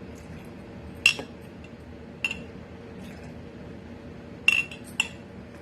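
Metal tablespoon clinking sharply against the mixing cup, about six short taps with a brief ring, while milk is spooned in.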